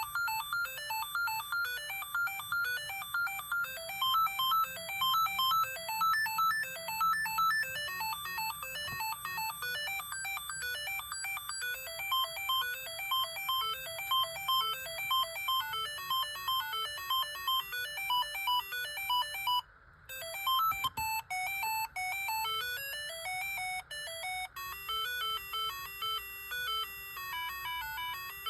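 Siemens A55 mobile phone playing its ringtones through its small speaker: quick electronic melodies of beeping notes. One tune breaks off just before two-thirds of the way in and another starts, and the pattern changes again to rising and falling note runs near the end.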